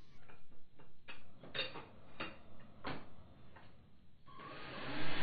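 Keyless chuck of a Makita cordless drill being turned by hand on a drill bit, giving several separate clicks about half a second to a second apart. A steady noise comes up near the end.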